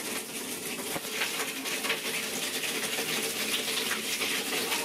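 Water running from a hose into a metal basin, filling it with a steady splashing hiss.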